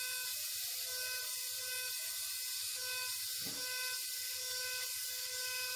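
Powered surgical bone saw running steadily as it cuts through a dog's ilium during a pelvic osteotomy, with an even whine and hiss.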